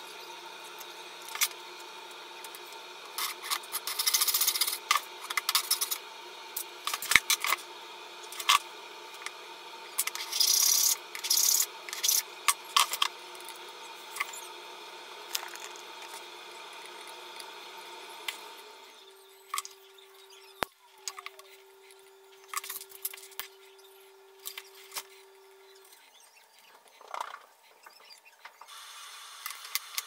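Clicks, taps and scrapes of steel tweezers handling small sterling silver clasp parts on a jeweller's bench, with a few longer scraping rasps in the first half. Near the end a small gas torch flame starts with a soft steady hiss.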